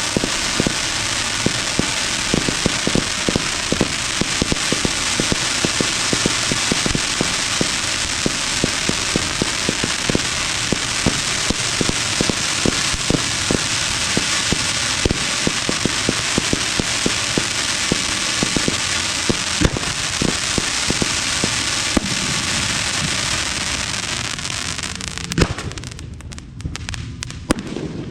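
Aerial fireworks going off in a dense, continuous barrage of crackling and bangs. The barrage thins out about 25 seconds in, with one loud bang and then scattered reports.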